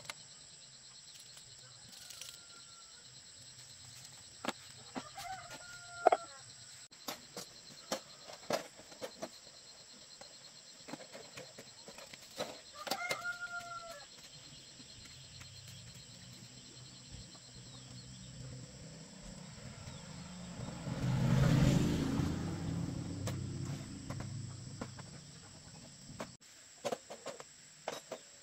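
Farmyard chickens calling a few times over a steady high drone of insects, with scattered clicks and knocks of handling. About two-thirds of the way through, a low rumble swells up, becomes the loudest sound, and fades over a few seconds.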